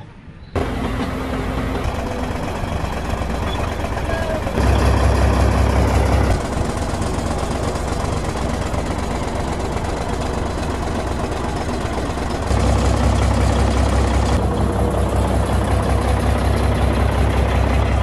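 Heavy machine engine running steadily, starting abruptly about half a second in. Twice the deep low rumble grows louder, briefly around five seconds in and again for the second half, as if revved or put under load.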